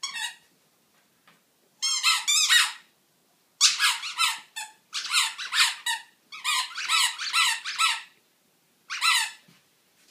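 A squeaky toy squeezed over and over as a dog chews it: clusters of rapid, high-pitched squeaks with short pauses between, about six bursts in all.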